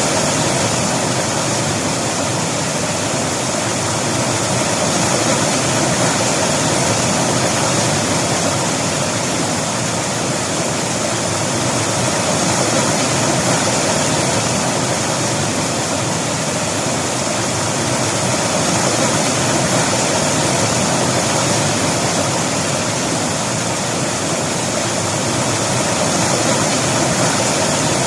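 River water rushing and splashing over rocks, a steady full hiss with no breaks.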